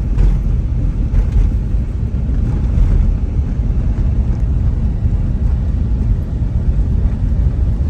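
Steady low rumble of a car driving along, road and engine noise heard from inside the car.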